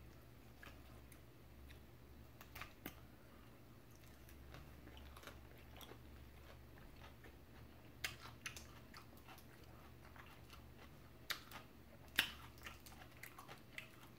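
Faint mouth-close chewing of shrimp salad, with scattered soft clicks and crackles as a cooked shrimp is peeled by hand; the loudest clicks come about eight and twelve seconds in.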